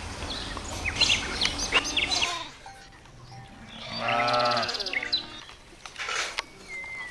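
Short high bird chirps in the first couple of seconds, then a single drawn-out, wavering bleat-like animal call, about a second long, near the middle.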